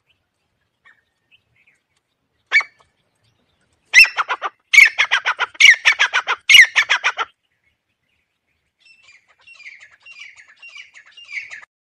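Francolin (teetar) calling: a single sharp note, then a fast run of loud, clipped, repeated notes, and a fainter run of similar notes near the end.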